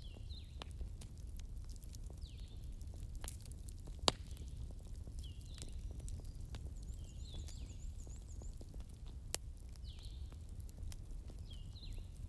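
Light clicks and taps of thin wooden barbecue sticks being handled and set in place, with a sharper click about 4 s in and another about 9 s in. Small birds chirp repeatedly in the background, short downward chirps about once a second with a brief quick trill midway, over a steady low hum.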